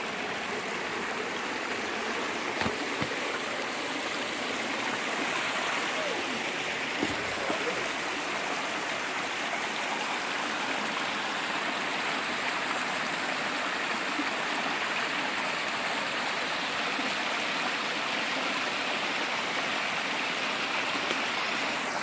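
Small creek spilling over rock ledges in little cascades: a steady rush of running water, with a few light knocks about three and seven seconds in.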